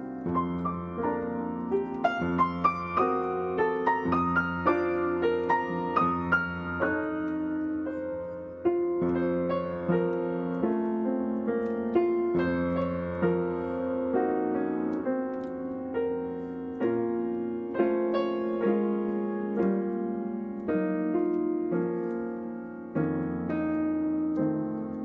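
Solo piano music: a melody played over sustained chords, in a steady unhurried rhythm of struck notes.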